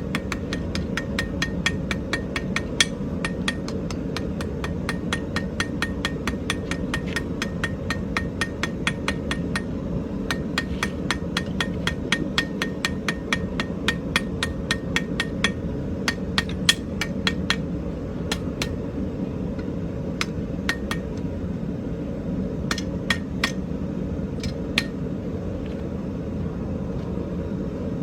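Hand hammer striking hot iron on an anvil, drawing out and rounding the tips of a forged fork's tines, in a fast steady run of about four blows a second, some with a short metallic ring. The blows slow and turn sparse past the middle and stop a few seconds before the end, over a steady low rumble.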